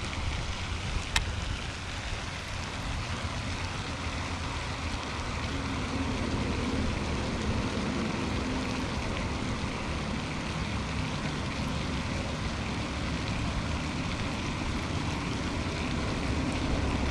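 Steady rushing outdoor noise with a low rumble and a hum that grows stronger after about five seconds, and one sharp click about a second in.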